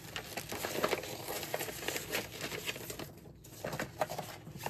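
A vinyl record album and its packaging being handled: irregular rustling and crinkling with small taps and scrapes.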